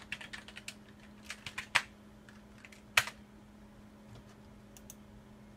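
Typing on a computer keyboard to enter a Wi-Fi password: a quick run of keystrokes over the first two seconds, then a louder single click at about three seconds, and a few scattered clicks after. A faint steady hum sits underneath.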